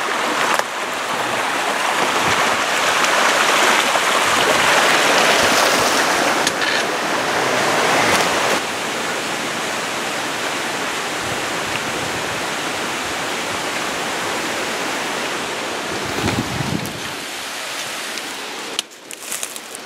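Creek water rushing and splashing down a waterfall, a steady hiss that is strongest for the first eight seconds or so and then settles a little lower. A brief low rumble comes about sixteen seconds in, and the water sound drops away suddenly near the end.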